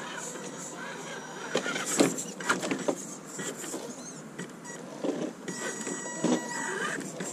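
Carisma SCA-1E Lynx electric RC scale crawler climbing over rock: a thin steady whine of motor and gears, broken by clicks and knocks of tyres and chassis on the stone. The loudest knock comes about two seconds in.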